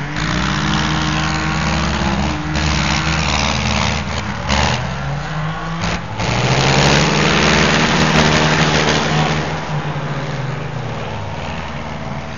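Diesel tractor engine running hard at high revs, its pitch rising and falling. It is loudest from about six to nine seconds in.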